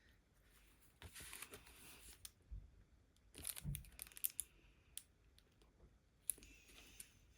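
Faint handling of craft supplies on a desk while glues are sorted through: a soft rustle about a second in, then several small sharp clicks and taps.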